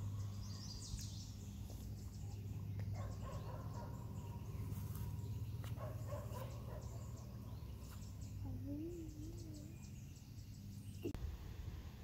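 Faint lakeside ambience: scattered bird calls over a steady low hum.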